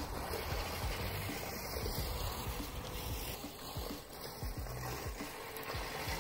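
Reel lawn mower, pushed by a pedalled mountain bike, whirring as its blades cut through grass, with wind buffeting the microphone. It fades briefly as the mower moves away about two-thirds of the way through, then comes back.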